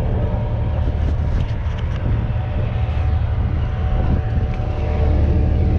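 Boat engine running at a steady speed: a continuous low drone with steady tones.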